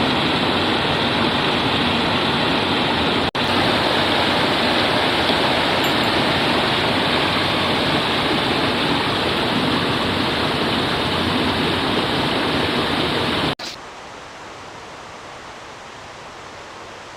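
Rushing water of a mountain river, a loud steady roar that breaks off for an instant about three seconds in and drops to a much quieter rush a few seconds before the end.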